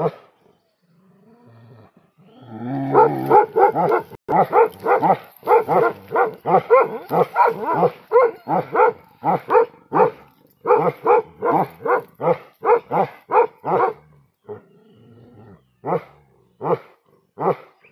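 Bhotiya (Himalayan sheepdog) barking: a long run of loud barks about two to three a second, a pause of about two seconds, then a slower string of barks near the end.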